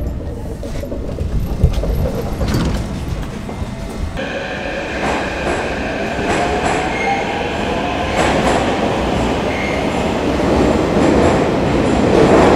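Kyiv Metro train running: a heavy low rumble with wheel clicks for the first few seconds, then, after an abrupt change, steady high squealing tones from the wheels and a rising electric motor whine as the train gets moving.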